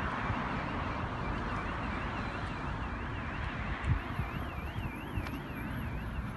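A faint electronic alarm warbling, its pitch rising and falling quickly and evenly, over a steady rush of outdoor traffic and wind noise.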